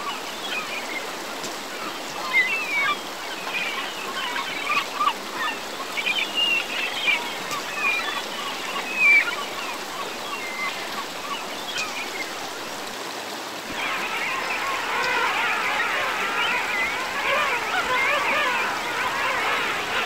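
Shallow rocky stream running and gurgling over stones, with bubbly splashing. About two-thirds of the way through the gurgling gets fuller and louder.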